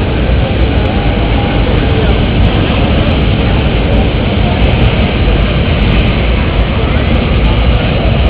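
Boeing C-17 Globemaster III's four turbofan engines running, a loud steady jet rumble and hiss with no change through the stretch.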